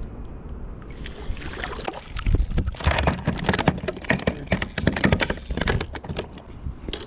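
A hooked rainbow trout being landed at a kayak, thrashing and splashing. From about a second in there is a dense run of irregular splashes and knocks, loudest in the middle.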